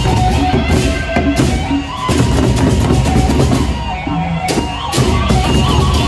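Gendang beleq ensemble playing: large double-headed barrel drums beaten with sticks in a steady, driving rhythm, with a melodic instrument playing a stepped tune above the drums.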